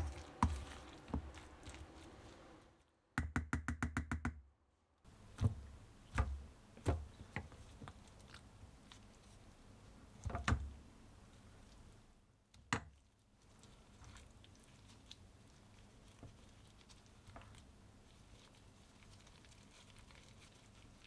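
Scattered short knocks and taps, with a quick run of about eight even taps a little after three seconds in, then only a faint steady hiss in the second half.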